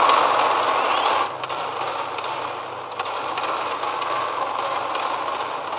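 Arena crowd cheering a won point in a badminton match, cutting off suddenly about a second in. Then a low hall background with scattered sharp clicks of rackets striking the shuttlecock as the next rally gets going.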